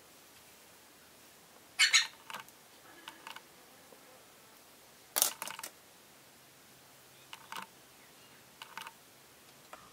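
A handful of short clicks and scrapes from a comb and an electric hot comb being handled and worked through the hair at a wig's hairline. The loudest come about two seconds in and about five seconds in, with fainter ones in between and near the end.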